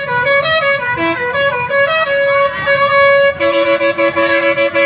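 Indonesian bus 'telolet' horn: a set of musical air horns playing a quick melody of stepping notes, then sounding in rapid repeated toots, about four or five a second, from about three and a half seconds in.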